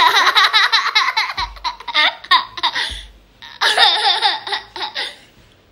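Small boy laughing hard while being tickled. Two long runs of rapid, high-pitched laughter with a short break about halfway through.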